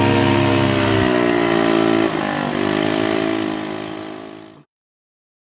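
Small motor scooter engine running as it pulls away, its pitch easing for a moment about two seconds in and rising again, then fading out. A deep steady hum under it stops about a second in.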